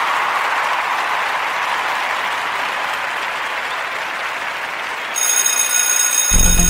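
Recorded applause in a radio jingle, an even clapping noise. About five seconds in a bright, high ringing tone comes in, and near the end electronic music with a heavy bass starts.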